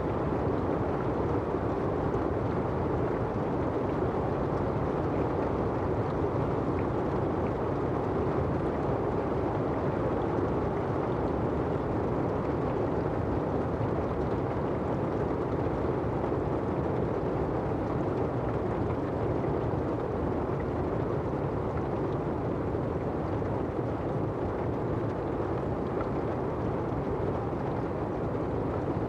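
Steady rain: a dull, even rush of rainfall on the umbrella and the asphalt, with no single drops or gusts standing out.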